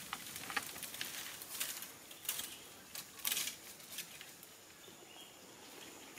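Dry leaf litter and a fruit husk crackling and rustling as pigtail macaques shift about and handle food: irregular sharp crackles, a few louder than the rest.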